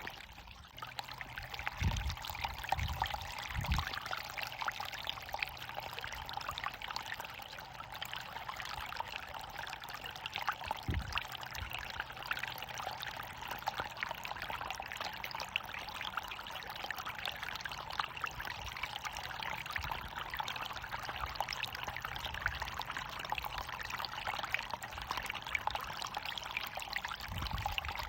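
Running water pouring and splashing steadily, as of a small waterfall. A few low thuds come through about two, three and four seconds in, again near the middle, and near the end.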